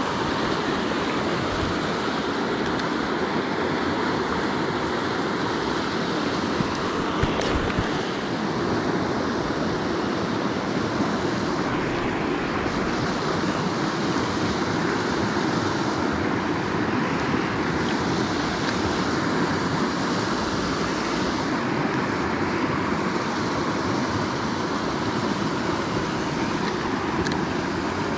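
River water rushing steadily, an even rush that holds at one level throughout. A single brief knock sounds about seven seconds in.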